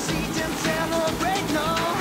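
Background song with a steady drum beat and a melody line sliding up and down.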